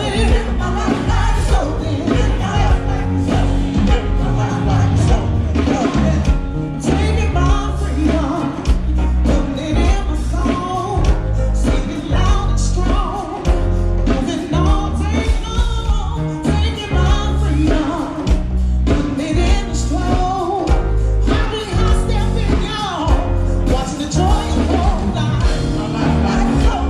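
Live band playing a song with a lead singer, a steady beat and a strong bass line.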